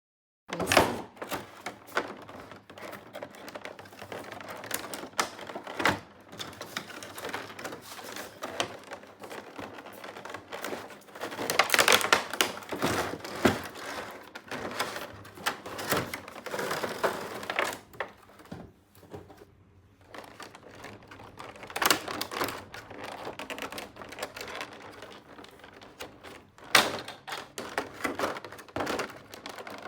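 Hands handling small plastic toy pieces, giving a quick, uneven run of light clicks and taps with a few louder handling stretches.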